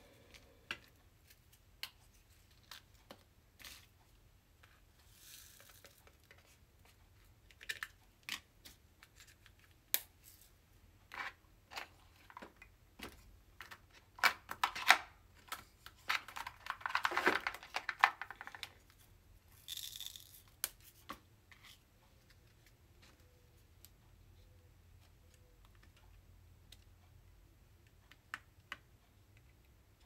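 Diamond painting handled at a light pad: scattered sharp clicks and taps of small plastic drill containers, trays and tools, with a longer rattling, crinkling stretch a little past halfway as the hand works through the box of drill bottles.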